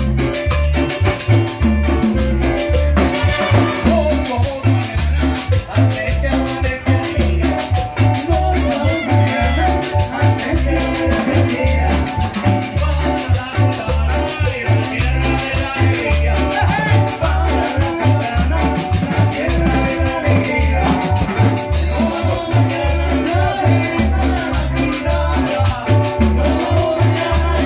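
Live Latin dance band playing an upbeat number, with a strong steady bass-and-drum beat under guitar, percussion and melody.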